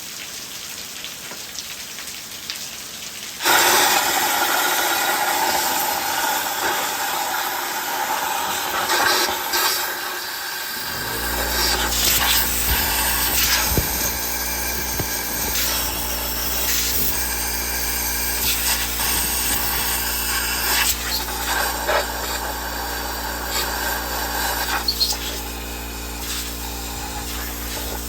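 Rain hiss, then about three and a half seconds in a power tool starts up loudly and keeps running with an uneven, scratchy sound. About eleven seconds in, a steady low motor hum joins it.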